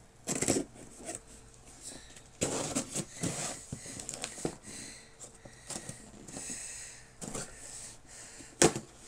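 Scissors slicing and scraping through packing tape on a cardboard box, with the cardboard rustling and scuffing as the box is handled, and one sharp knock near the end.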